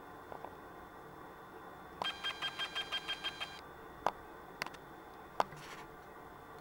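A rapid run of about ten electronic beeps lasting about a second and a half, followed by three sharp clicks.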